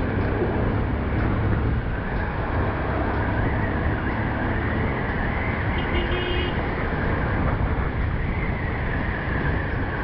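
Steady engine drone and wind rush from a two-wheeler being ridden through road traffic, with the tyre and traffic noise of cars around it.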